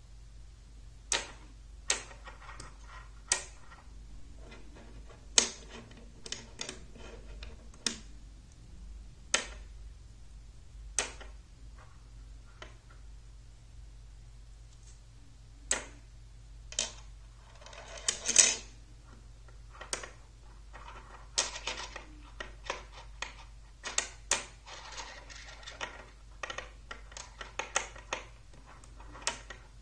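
Magnetic rods snapping onto steel balls and clacking against each other: irregular sharp metallic clicks as a frame is assembled by hand. About two-thirds of the way in comes a short metallic rattle, the loudest sound.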